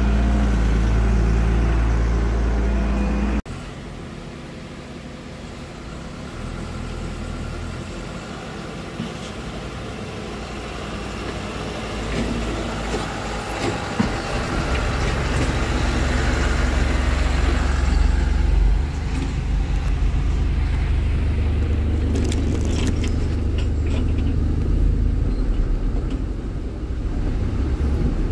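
Small dump truck engine running with a low drone; the sound drops abruptly about three seconds in, then builds back up to a steady loud low drone.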